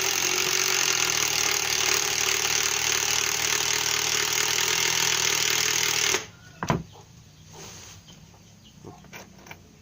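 Makita TD110D 12 V cordless impact driver running hard under load with its hammer mechanism rattling, boring into hard wood. It cuts off abruptly about six seconds in, followed by a single sharp knock.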